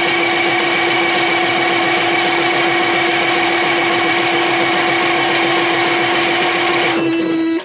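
Electric starter cranking a Detroit Diesel 6-71 two-stroke inline-six, a loud, steady whine that never catches: the engine gets no fuel because the pump can't pick it up. The cranking cuts off suddenly at the very end.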